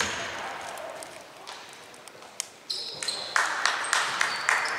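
Basketball game on an indoor court: a ball bouncing, with sneakers squeaking on the floor starting about two and a half seconds in, among repeated knocks from the ball and footsteps.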